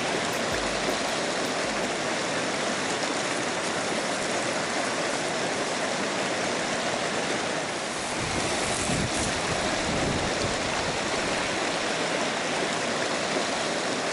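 Shallow mountain stream rushing over rocks and small rapids, a steady water noise.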